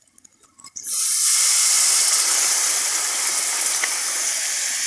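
Water poured into a hot kadai of fried masala and oil, hitting the pan about a second in with a sudden loud hiss of steam that carries on as a steady sizzle.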